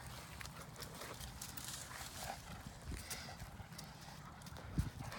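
Two Great Danes' paws scuffing and thudding irregularly on sandy, leaf-strewn ground as they tug a Jolly Ball between them, with one louder thump near the end.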